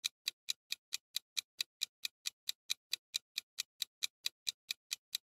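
Countdown-timer ticking sound effect: a steady run of sharp clock-like ticks, about four or five a second, while the answer timer runs down.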